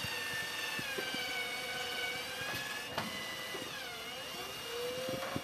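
Cordless drill-driver motor whirring steadily as it backs a screw out of a wooden board. Its pitch dips about four seconds in and then rises again as the trigger is eased and pressed.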